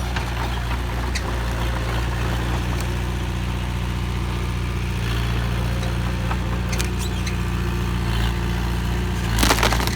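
Heavy diesel engine of earth-moving machinery running steadily with a low drone, and a brief loud clatter near the end.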